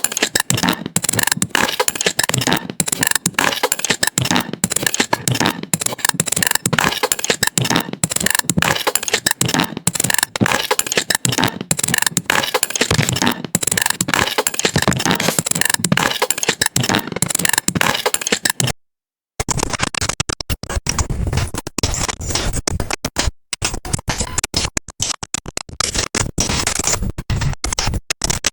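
AI-generated weird noise from the Stable Audio Open model: a dense, choppy crackling and scratching texture broken up by many tiny dropouts. It cuts out for a moment a little past halfway, and a second generated sound with a heavier low end follows.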